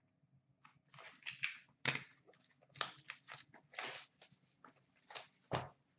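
Hands handling cardboard boxes of trading cards: a run of irregular rustling and scraping noises, with a thump about two seconds in and another near the end.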